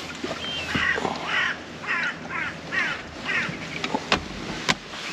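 A crow cawing about six times in a quick series of short, harsh calls. Two sharp clicks follow near the end.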